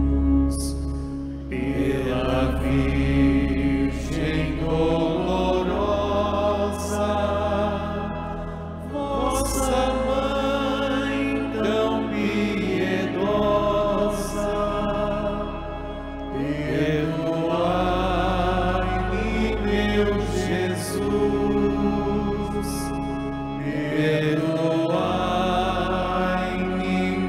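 A slow sung devotional chant: a voice sings phrases a few seconds long over held low accompanying notes.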